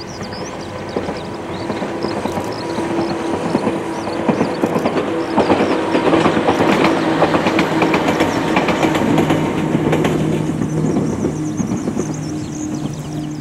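Two-car electric commuter train passing at a distance, its wheels clicking over rail joints. The sound swells to a peak in the middle and fades away toward the end.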